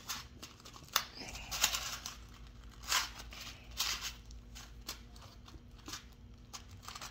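Crinkling packaging and small clicks as a packet of Eagle Claw Aberdeen fishing hooks is handled and opened by hand, in short bursts about once a second.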